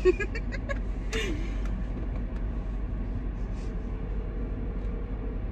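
Steady low hum inside a parked car with its engine or climate fan running. A few short clicks and a breathy burst come in the first second or so.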